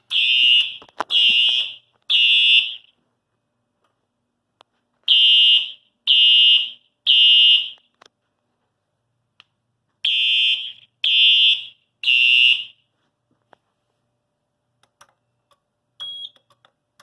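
Simplex fire alarm horns sounding in sync in the temporal code-3 evacuation pattern: three loud, high blasts, a pause, repeated three times.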